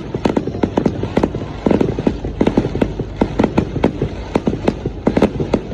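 Firework display: a rapid, continuous barrage of sharp bangs and cracks, several a second, over a low rumble.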